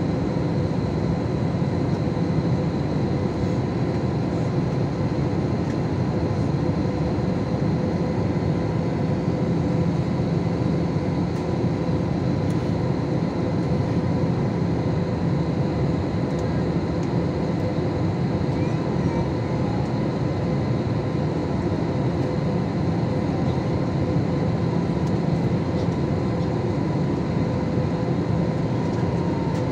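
Steady cabin noise of a jet airliner in flight: the wing-mounted turbofan engine and rushing air, with an even hum of steady tones under it.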